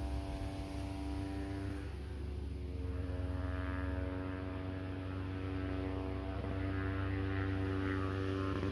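Steady motor drone with several held pitched tones over a low hum, changing pitch about two seconds in.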